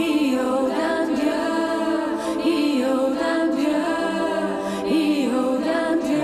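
Background film music: voices singing a chant over a steady held drone note.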